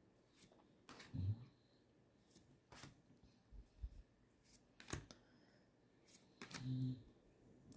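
Faint, scattered clicks and rustles of Magic: The Gathering trading cards being handled and slid past one another as a booster pack is flipped through.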